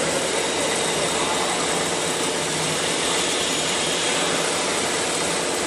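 CNC router spindle running steadily after being switched on: a constant hiss with a steady whine over it.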